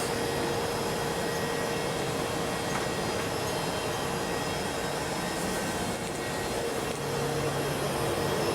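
Steady whir of the International Space Station's cabin fans and equipment: an even hiss with a constant hum in it, joined by a lower hum about seven seconds in.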